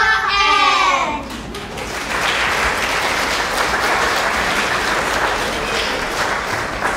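Audience applauding, a steady clatter of many hands, after a loud call by voices that ends about a second in.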